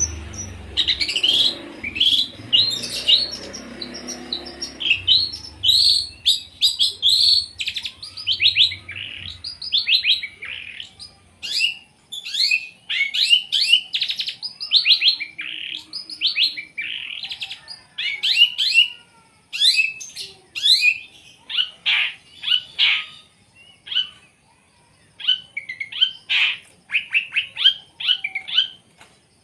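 Long-tailed shrike (cendet) singing a rapid, loud string of short chattering notes and mimicked calls of other birds, in quick runs broken by brief pauses.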